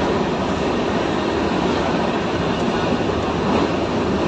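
Steady running noise of an Indian Railways general-class passenger coach on the move, heard from inside the coach.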